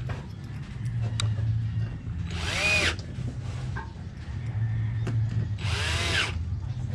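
Cordless drill driving screws to fix a concealed cabinet hinge to a plywood door: two short runs about three seconds apart, the motor whining up in pitch and back down each time.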